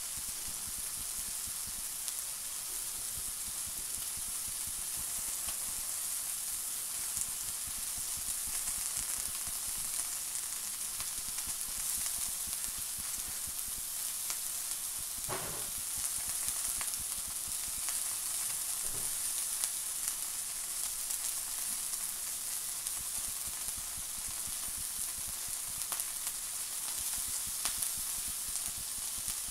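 Beef burger patty sizzling steadily in a non-stick frying pan on low heat, with a fine crackle of spitting fat.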